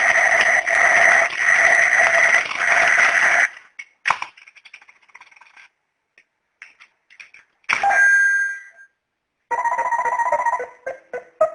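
Bomb-shaped novelty alarm clock ringing: a loud, harsh electronic alarm that cuts off suddenly about three and a half seconds in. A click and a short ringing tone follow, and plucked-string music starts near the end.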